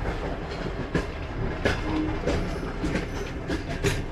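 Passenger train running, heard from inside a carriage: a steady low rumble with scattered clicks and rattles.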